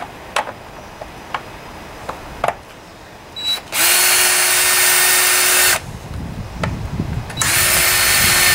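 Power drill-driver with a Phillips bit backing out the screws of an engine cover. It runs in two spells of about two seconds each, about four and seven and a half seconds in, with a steady motor whine. A few light clicks of the tool on the screws come before the first spell.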